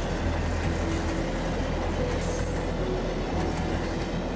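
Freight train of hopper wagons rolling past: a steady rumble of wheels on rails, with a brief high squeal about two seconds in.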